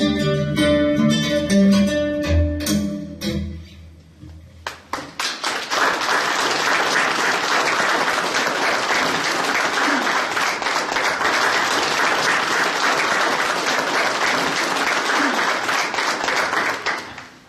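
Acoustic guitar playing the last notes of a song, which ring out and die away a few seconds in. Then an audience applauding steadily, fading out near the end.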